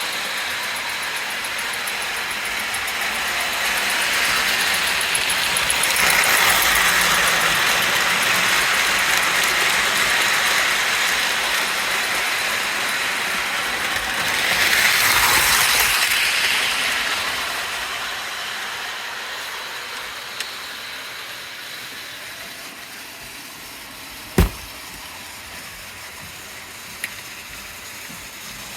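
Model train running on its track, the rolling noise swelling twice, about six and fifteen seconds in, then fading away. A single sharp click comes about twenty-four seconds in.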